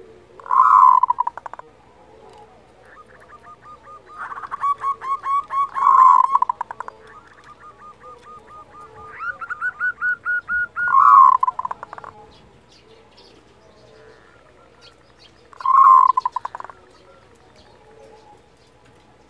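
Zebra dove (perkutut) giving its 'kerot' call: rapid rattling, staccato cooing phrases. Four loud phrases come about five seconds apart, two of them led in by long runs of quick, softer pulses.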